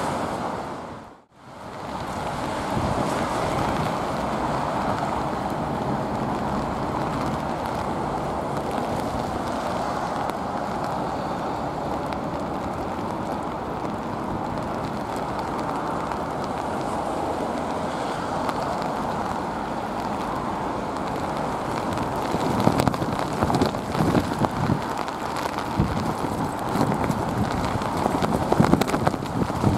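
Airbus A380 on final approach, the steady rush of its jet engines mixed with wind buffeting the microphone and rain. The sound drops out briefly about a second in, and wind gusts thump harder and more irregularly near the end.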